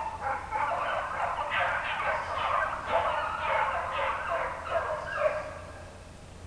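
A pack of beagles baying in chorus on the line of a running rabbit, many overlapping voices at once, dying away about five and a half seconds in.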